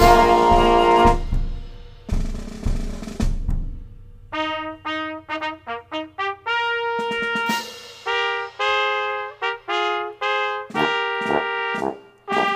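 Small brass ensemble with flute and percussion playing a military march medley: a loud full chord with a cymbal crash at the start, then trumpets and flugelhorn alone playing a line of short separate notes from about four seconds in, with trombone and the lower parts coming back in near the end.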